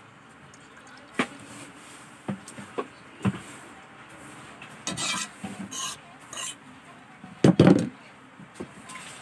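Hands squeezing and stirring sweet potato leaves in water in a metal pot: scattered knocks of fingers against the pot with short wet swishes. The loudest is a quick cluster of knocks about three quarters of the way through.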